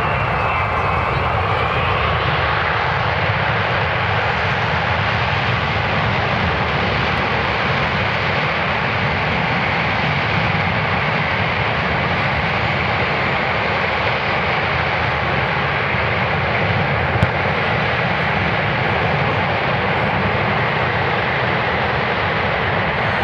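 Boeing C-17 Globemaster III's four turbofan engines running loud and steady during a short-landing demonstration. About seventeen seconds in, one engine gives a single sharp bang, the sign of an engine issue.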